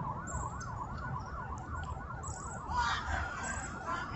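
An emergency vehicle siren in a fast yelp, its pitch sweeping up and down about three times a second, over a low rumble.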